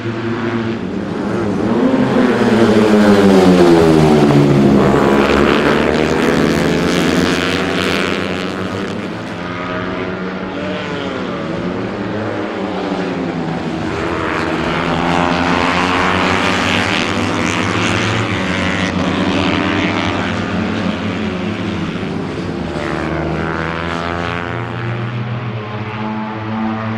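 Several small racing motorcycles going past at full throttle, their engine notes overlapping. Each engine's pitch bends and drops as the bikes go by; the loudest pass comes a few seconds in and another group passes midway.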